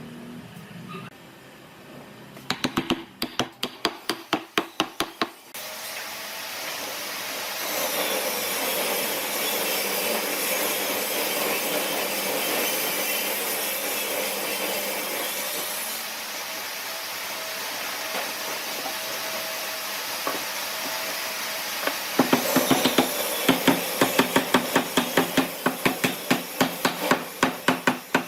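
Woodworking tool noise: a burst of rapid, sharp strokes on wood, about five a second, then a long steady hiss, and another run of rapid strokes near the end.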